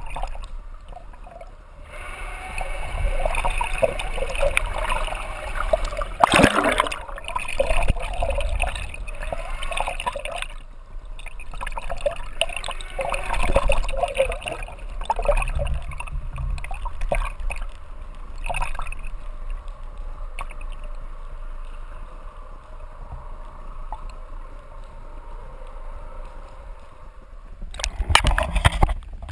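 Sea water sloshing and gurgling around an underwater action camera's housing, uneven in level, with a sharp splash about a third of the way in. Near the end the splashing grows louder as the camera breaks the surface.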